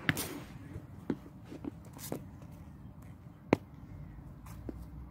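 A cricket bat striking a ball in the nets right at the start, a sharp crack. Several more short, sharp knocks follow, the loudest about three and a half seconds in.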